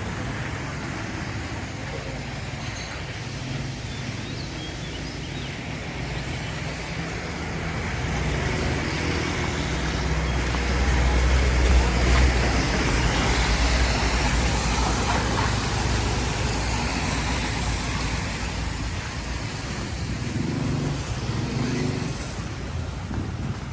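Street traffic with a steady hiss of road noise; a vehicle passes close, its rumble loudest about eleven to thirteen seconds in.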